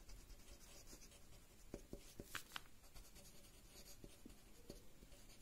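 Faint scratching of a marker pen writing words on paper, a string of short separate strokes.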